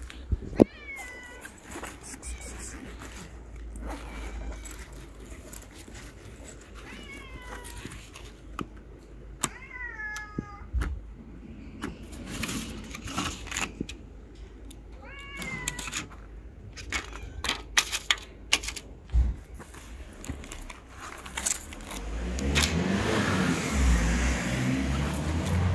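A homeless tabby cat meowing several times, short calls that fall in pitch, begging for food. There are scattered clicks and taps, and a louder rustling noise over the last few seconds.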